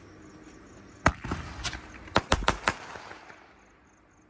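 Elephant Brand seven-shot aerial firework bursting in the air: a sharp bang about a second in, then crackling and a quick run of four or five loud pops, fading out within a couple of seconds.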